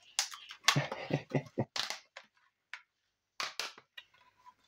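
Clicks and knocks of computer hardware being handled: a quick run of sharp clicks in the first two seconds, then another short clatter about three and a half seconds in.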